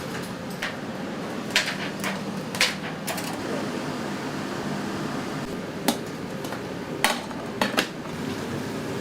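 Kitchen clatter: about eight sharp knocks and clacks of utensils and dishes, spread irregularly, over a steady hum of kitchen ventilation.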